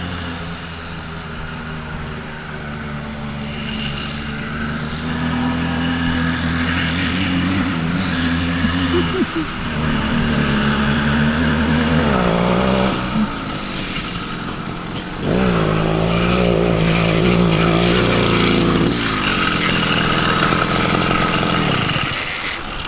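A 66cc two-stroke motorized-bicycle engine running under way, its pitch rising and falling with the throttle. It eases off about 13 seconds in and comes back louder and higher about two seconds later.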